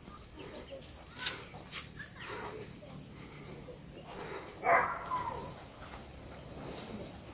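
Faint rural outdoor ambience: a steady high insect hum, with a few soft clicks and rustles and one brief louder sound a little past halfway.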